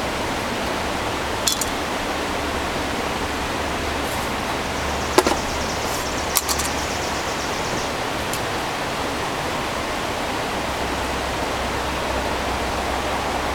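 Steady rushing of a nearby river, with a few short sharp clicks over it, the loudest about five seconds in.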